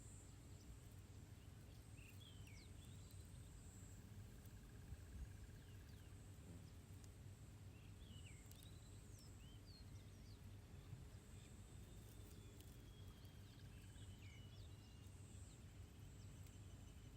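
Faint outdoor ambience: scattered short bird chirps over a steady high insect buzz and a low rumble.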